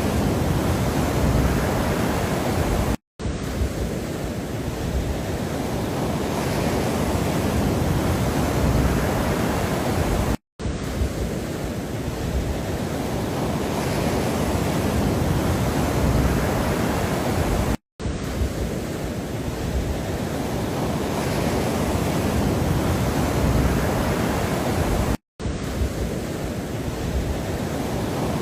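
Steady rushing background noise, heaviest in the low end, of the kind played as a relaxation or focus track. It cuts out to silence for a split second four times, evenly about seven and a half seconds apart.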